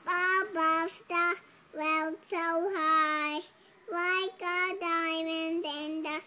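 A toddler girl, about two and a half years old, singing a song unaccompanied: a string of short sung syllables and a few longer held notes.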